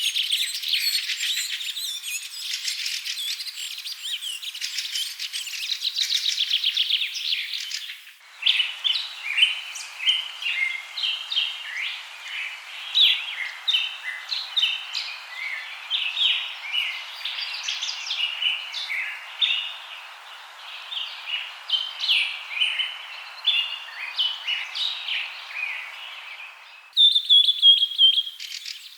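Songbirds singing: dense fast trills at first, then many short, separate chirps over a faint hiss, then a high trill again near the end. The changes at about 8 s and 27 s are sudden, as where separate recordings are spliced together.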